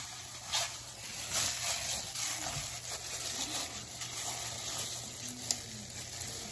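Wet squishing and swishing of soaked sea moss being worked by a gloved hand in a bowl of water, in irregular strokes, with a short sharp click about five and a half seconds in.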